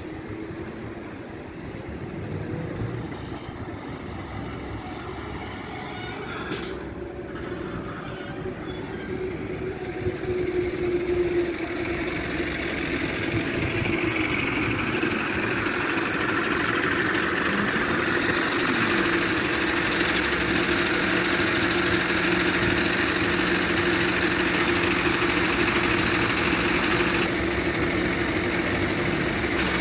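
Single-deck bus engine running close by, getting louder over the first half and then holding steady.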